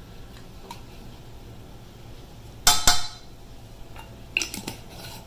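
A metal measuring spoon clinking against a stainless steel saucepan as spice is tapped in: two sharp clinks about three seconds in, then a few quicker, lighter clinks about a second and a half later.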